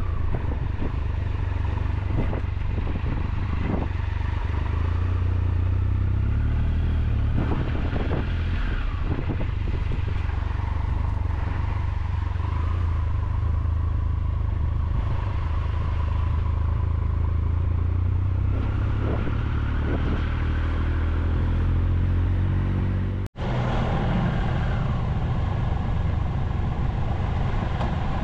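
Triumph Tiger 1200 motorcycle being ridden: its three-cylinder engine runs under a steady low rumble, and the engine note rises and falls a few times as it speeds up and slows. There is a momentary drop-out about three-quarters of the way through.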